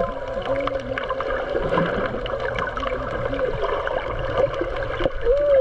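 Muffled underwater sound picked up by a snorkeler's camera: a steady hum with scattered small clicks and wavering, voice-like glides in pitch.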